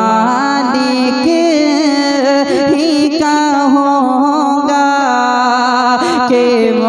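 A man singing an Urdu naat into a microphone, holding one long ornamented line whose pitch slides and wavers without a break.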